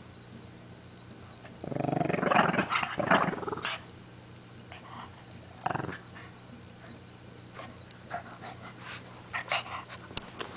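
Shih Tzu growling in play while tugging at a blanket: one rough growl of about two seconds starting near two seconds in, a short one a few seconds later, then quieter scattered rustles of the blanket.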